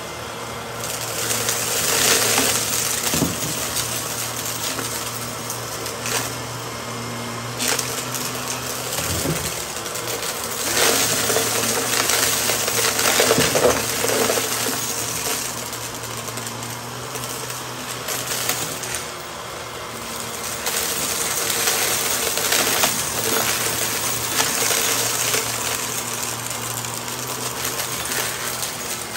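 Shark upright vacuum running over a shaggy rug with a steady motor hum, sucking up a mix of glitter, sequins and dry grit with a continuous crackling, rattling crunch that swells louder in a few surges.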